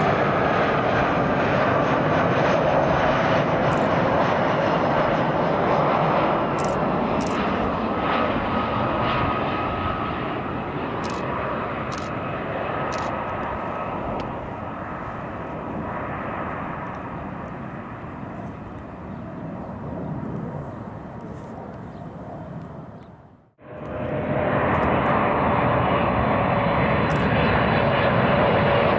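A Swiss Airbus A320's jet engines run on final approach: a steady rush with a high whine that slowly fades as the airliner descends to the runway. About three-quarters of the way through, the sound cuts out abruptly. It is replaced by a Boeing 777-300ER's GE90 engines on approach, a steady rush with a lower whine.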